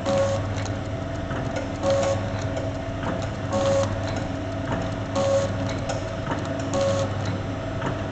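DXD50Y liquid sachet packing machine running with its filling pump on: a steady motor hum under a repeating mechanical stroke about every 1.7 seconds, one fill-seal cycle each time.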